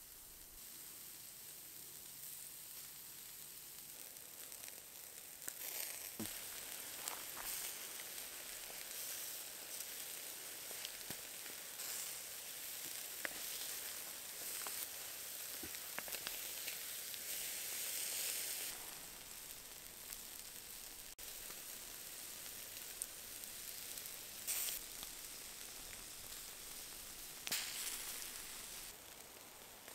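Seasoned boneless chicken leg pieces sizzling on a wire grill grate over wood embers, with scattered crackles and pops. The sizzle swells louder in stretches as pieces are laid on and turned.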